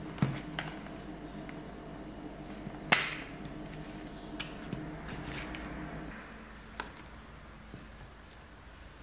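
Clear plastic clamshell berry punnets being handled and opened on a counter: a few light plastic clicks and taps, with one sharp plastic snap about three seconds in. A low steady hum runs underneath and drops away about six seconds in.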